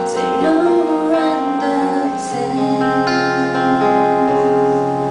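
Music: a song with acoustic guitar playing sustained chords, in a passage between sung lines.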